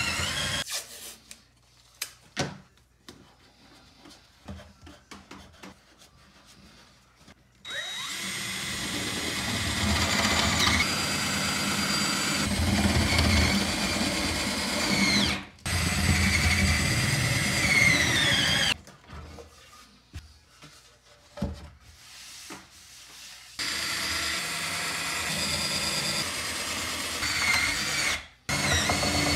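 Cordless drill boring holes into a pine board: the motor whines through three long runs of several seconds each, its pitch shifting as the bit bites and eases off. Quieter pauses with a few light knocks fall between the runs.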